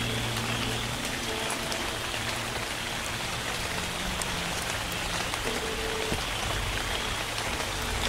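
Steady rain falling, an even hiss scattered with the ticks of single drops.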